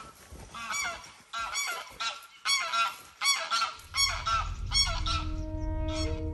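Geese honking, a run of separate calls about two a second, giving way near the end to held notes of music.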